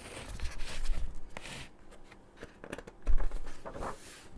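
Paper rustling and scraping as the pages of a picture book are turned, with scattered small clicks and a soft thump about three seconds in.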